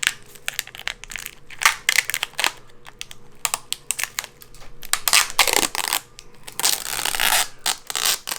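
Protective plastic film being peeled off a PC component and crumpled, crackling and crinkling in irregular bursts, with the longest crinkle near the end.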